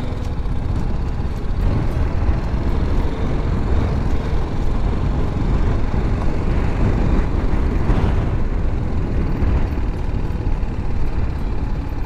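Motorcycle engine running at low road speed, mixed with a heavy, even rumble of wind noise on the bike-mounted camera's microphone.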